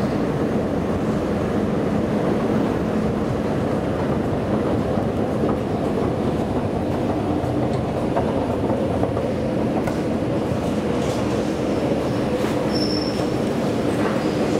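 Escalator running as it is ridden up to the top landing: a steady mechanical rumble of the moving steps and drive, with a few faint clicks and one brief high squeak near the end.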